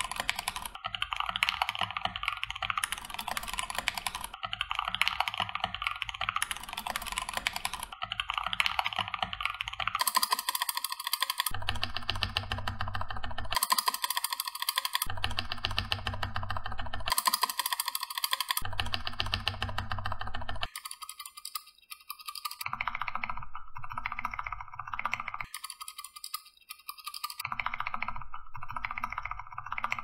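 Fast typing on a Keychron K2 mechanical keyboard: a dense run of key clacks. Through the middle the sound switches abruptly every second or two between a deeper, fuller version and a thinner one, as the stock and modded keyboard sounds are played side by side.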